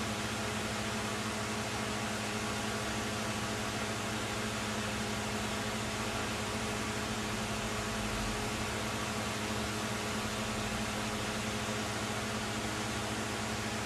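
Steady hiss with a low, even hum, unchanging throughout, like a small fan or appliance motor running.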